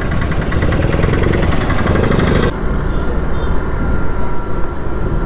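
Motorcycle engine running steadily while riding through street traffic, heard from a helmet or bike camera with wind and road noise. The high hiss drops abruptly about two and a half seconds in.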